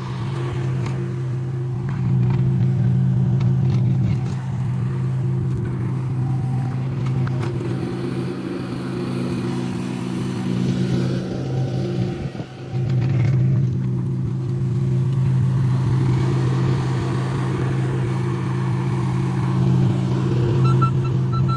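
Engine of a rental John Deere machine running steadily with a low hum, dipping briefly about twelve seconds in.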